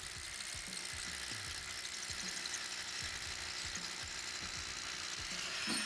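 A machine's engine idling steadily, with a faint high hiss over it and a slight rise in level near the end.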